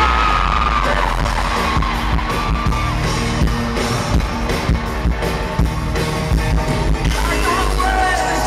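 Live pop-rock music played loud: a heavy bass line and pounding drum beat with guitar, the vocals dropping out and coming back near the end, with crowd yells over it.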